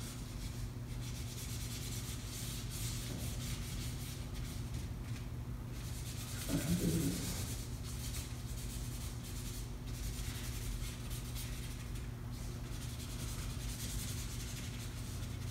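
Felt-tip marker rubbing across paper in repeated colouring strokes, a scratchy hiss that comes and goes. A short low vocal murmur about seven seconds in.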